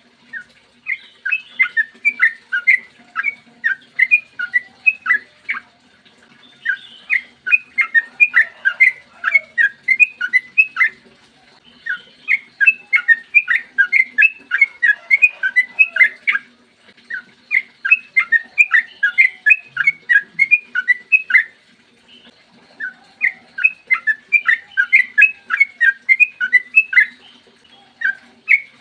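Yellow-vented bulbul (trucukan) singing long, rapid runs of bright chirping notes, several notes a second, in phrases of about four to five seconds broken by short pauses.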